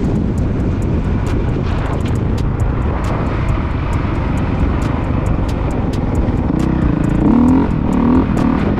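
Dirt bike engine running, with wind buffeting the microphone; the engine pitch rises and falls near the end.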